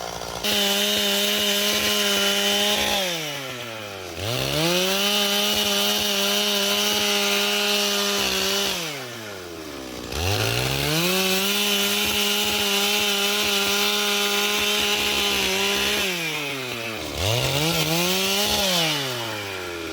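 Stihl two-stroke chainsaw sawing through timber beams. It revs to full throttle for several seconds at a time, dropping back to idle between runs: three long runs and then a short rev near the end.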